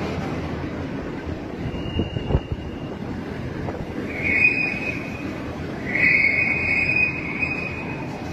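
Storm wind blowing hard, with a high thin whistle that comes and goes three times: briefly about two seconds in, again about four seconds in, and longest from about six to seven and a half seconds in.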